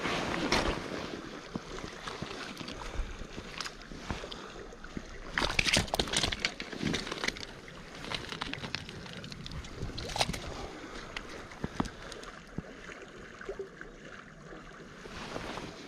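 Steady rush of a shallow river running over gravel, with scattered clicks, scrapes and rustles of stones and clothing as a landed fish is handled at the water's edge, most busily around six seconds in and again near ten seconds.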